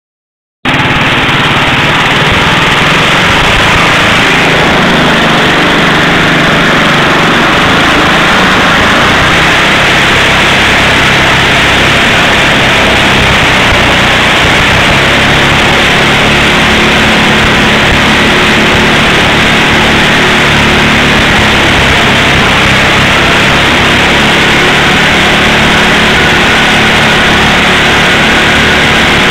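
Racing lawn mower's small engine running loud and steady close by while its rear tire spins on asphalt in a burnout.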